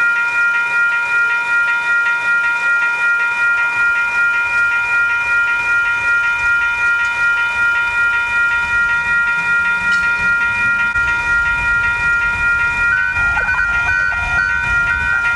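Freight train horn held on steadily, a chord of several notes sounding without a break and pulsing slightly. A few short beeps sound near the end.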